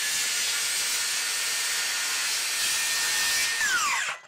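DeWalt 60V Max FlexVolt 7-1/4-inch brushless cordless circular saw (DCS578) running at full speed through a 2x8 pine board, a steady high whine over the noise of the cut. Near the end the trigger is released and the electric brake pulls the blade down in a quick falling whine that stops in about half a second.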